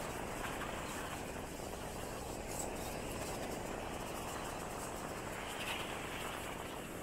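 Steady outdoor background noise with no clear single source, and one brief, faint higher-pitched sound about six seconds in.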